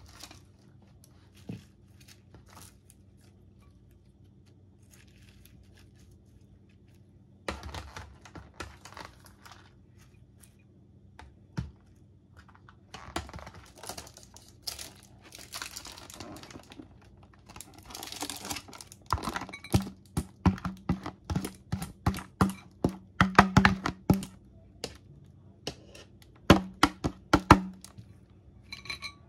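Salad being served by hand: plastic packaging crinkling and tearing, then a long run of quick clicks and taps as metal tongs knock against a ceramic dish.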